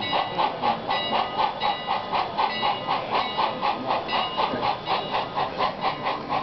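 Sound unit of an HO-scale Thomas the Tank Engine model locomotive playing steady steam chuffs, about five a second, as it runs slowly into the station. A soft bell rings about once a second over the chuffing.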